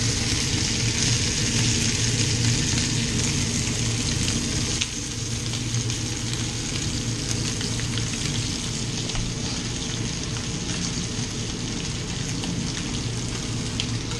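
Breaded zander fillets sizzling in a hot frying pan: a steady hiss with fine crackles, over a steady low hum.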